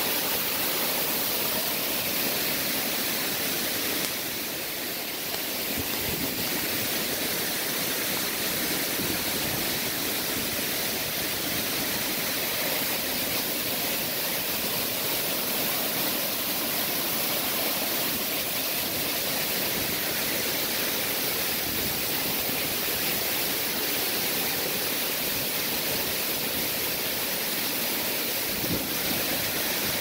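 Tall waterfall pouring into a rocky pool close by, a steady, even rush of falling water with runoff splashing over the rocks.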